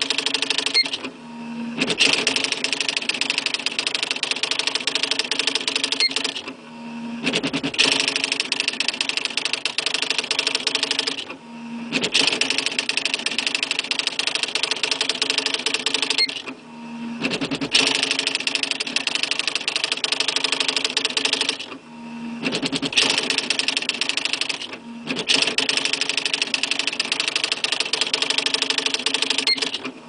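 Smith Corona XD 8500 electronic daisywheel typewriter printing its demo text on its own: a fast, even chatter of character strikes. It comes in runs of about four to five seconds, one per printed line, each broken by a short pause as the carriage returns and the paper feeds.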